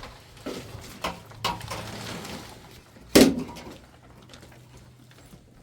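Four sharp knocks and clatters of handled objects, the loudest about three seconds in, then quieter.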